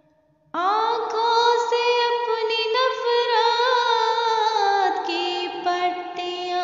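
Music enters suddenly about half a second in after near silence: a sustained melody holding and gliding between notes, without words.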